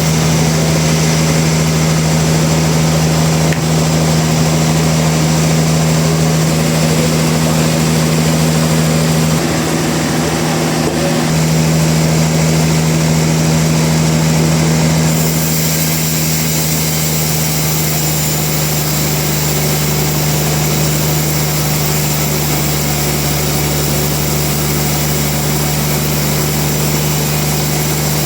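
Sawmill machinery running, a steady engine drone with an even hum. The tone shifts slightly about fifteen seconds in.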